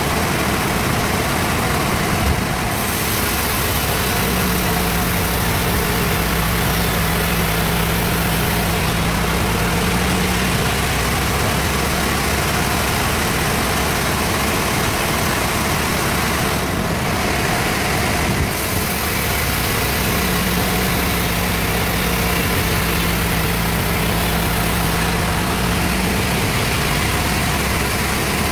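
Sawmill band saw running steadily while sawing through a large trembesi log, with a hum that swells in twice for several seconds as the cut goes on.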